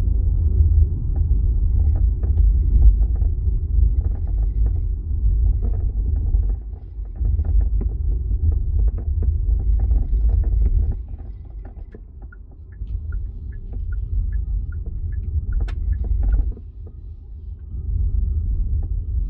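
Road rumble inside a moving 2025 Hyundai Ioniq 5 Ultimate, with light, irregular rattles and creaks from the boot trim. A run of short, evenly spaced high ticks comes in the middle.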